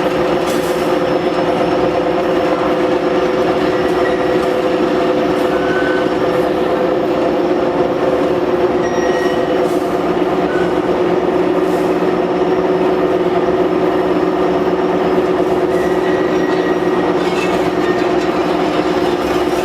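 Steel straightening machine for fan guards running, a steady loud mechanical drone with a constant hum and a few faint ticks.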